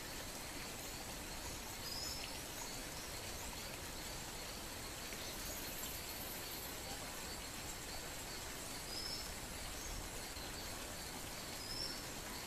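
Quiet outdoor ambience: a steady faint hiss with a thin high tone, and a bird giving a short faint chirp every few seconds.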